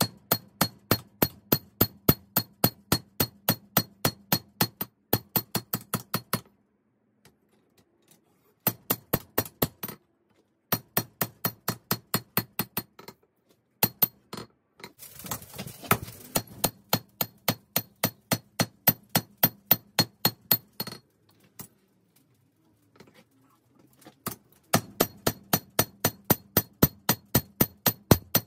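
Hammer blows on an anvil forging a 5160 spring-steel blade: runs of quick, evenly spaced strikes, about three or four a second, each with a bright metallic ring, separated by short pauses. About halfway through there is a brief hiss.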